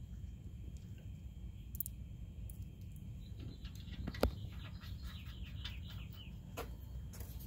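A bird chirps in a quick run of short calls for about three seconds in the middle, over a steady low rumble. About four seconds in there is a single sharp metal click as a washer and nut are fitted onto a condenser mounting bolt.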